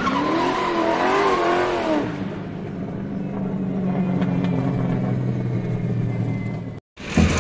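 Car engine sound effect: a wavering revving tone for about two seconds, then the engine running steadily at a low, even pitch, cutting off abruptly near the end.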